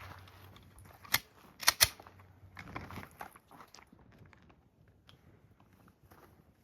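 Sharp mechanical clicks from a pistol being handled: one click, then a louder quick pair about half a second later, followed by faint scattered ticks.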